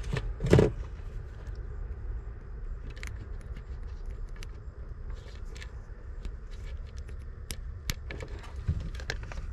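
Insulated wire leads being handled and untangled and a small plastic plug connector pushed into an LED strip's socket: rustling and scattered small clicks, with a brief louder rustle about half a second in, over a low steady background rumble.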